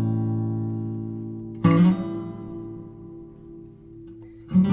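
Background music on acoustic guitar: a ringing chord fades, a new chord is strummed about one and a half seconds in and dies away slowly, and another comes in near the end.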